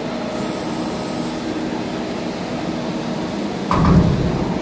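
Steady hum of a servo-hydraulic CNC press brake's power unit running at idle. A brief low thump comes near the end.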